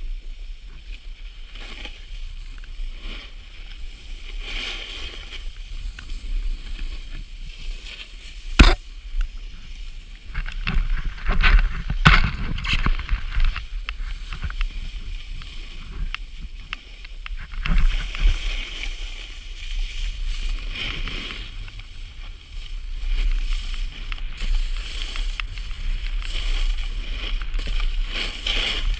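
Wind rushing over the microphone together with the hiss and scrape of sliding down a groomed snow slope. A sharp knock comes about nine seconds in, and a few more follow near twelve seconds.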